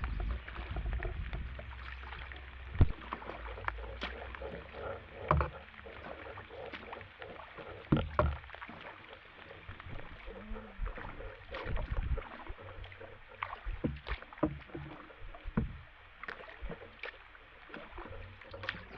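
Canoe being paddled: paddle strokes splashing and dripping, with irregular sharp knocks and splashes over a steady low rumble.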